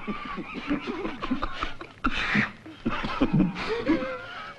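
Men stifling laughter: short, broken chuckles and snickers held back between breaths.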